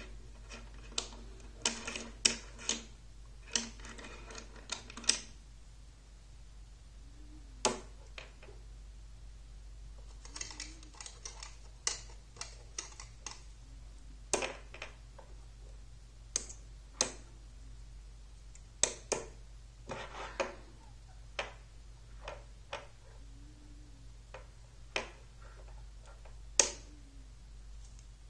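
Magnetic metal rods and steel balls clicking together as they snap into place: sharp single clicks at irregular intervals, with short runs of quick metallic clicking as rods are pulled off a stack and fitted.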